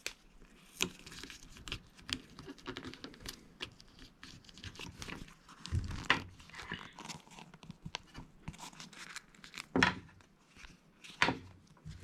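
Hands handling a plastic jar lid, coaxial cable and electrical tape wrapped over a wire joint. A scattered series of small clicks, rustles and crinkles, with a few sharper knocks about halfway through and again near the end.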